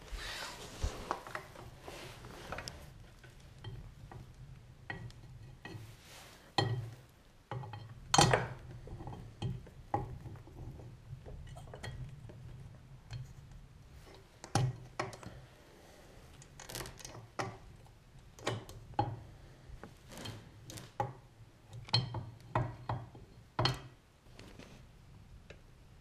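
Hand tools and metal pit bike brake parts clinking and knocking as they are handled, in many irregular sharp clicks, with a stretch of rustling at the start.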